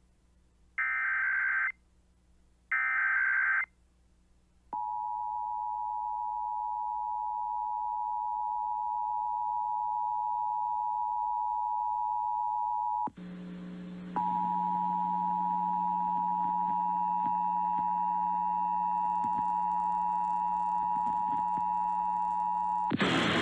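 Emergency Alert System broadcast of a Required Monthly Test: the last two short warbling digital SAME header bursts, then the steady two-tone EAS attention signal. The attention signal drops out for about a second with a low hum, resumes, and is joined near the end by a loud burst of noise.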